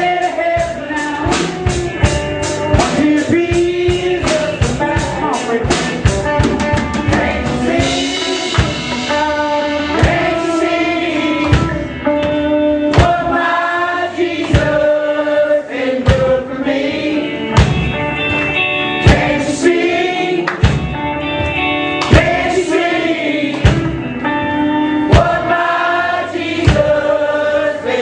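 A band playing an upbeat gospel song with singing and drums. Over the first eight seconds the drum beats come fast and quicken, and then voices sing over the band.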